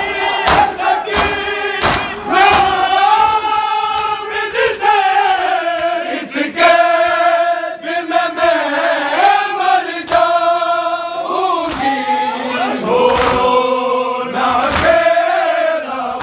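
Crowd of men chanting a Muharram nauha (mourning lament) together, with sharp slaps of hands striking bare chests in matam, about two a second at first and then more scattered.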